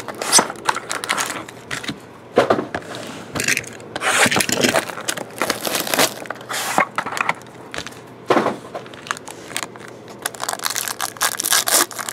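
Plastic shrink wrap being torn and crinkled off a sealed trading-card box, with the box and foil card packs handled, in irregular crackling, rustling bursts.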